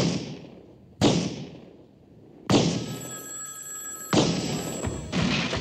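A telephone ringing, heard among a series of loud bangs, about five of them a second or so apart, each dying away.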